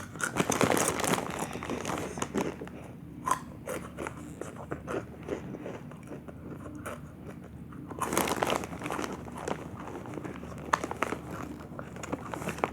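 Close-up crunching and chewing of rolled tortilla chips (Dynamite Takis), a dense run of crisp cracks, louder about a second in and again around eight seconds in.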